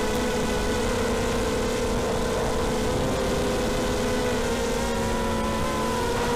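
ZMR250 quadcopter's motors and propellers in flight: a steady buzzing hum over a rough rushing noise, shifting slightly in pitch about five seconds in.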